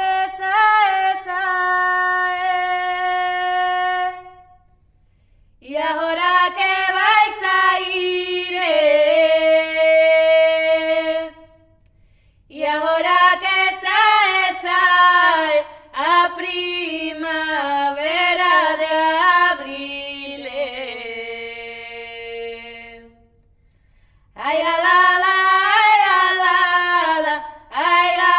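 A female voice sings a melody without instruments, in long held phrases with short pauses between them.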